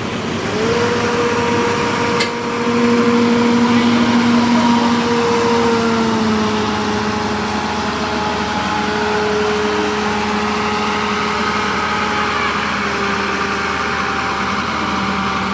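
Engine of asphalt paving machinery running steadily, with a whining tone that steps to a new pitch a few times.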